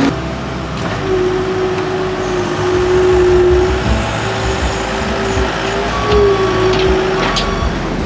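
New Holland skid steer's diesel engine running under load as it pushes a pile of dirt, a rough, uneven rumble with a steady whine over it.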